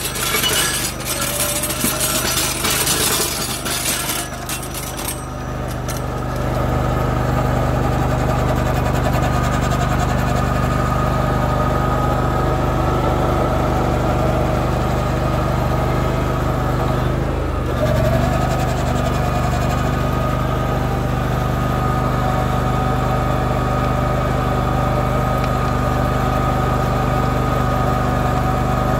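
Cub Cadet GT2544 garden tractor's engine running steadily under load while it drags a box blade through sand. A hissing, rattling noise lies over it for the first five seconds or so. About seventeen seconds in, the engine note dips briefly and picks back up.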